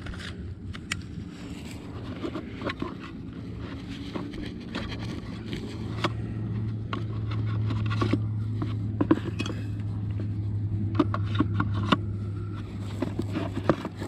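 Clicks and scrapes of a small folding drone and its hard-shell carrying case being handled as the drone's arms are unfolded and parts are lifted from the case. A low steady hum swells from about five seconds in and eases off near the end.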